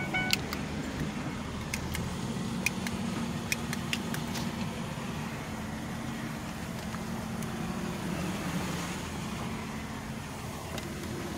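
A car engine running steadily, heard from inside the cabin as an even low hum. Several sharp clicks and knocks come in the first few seconds.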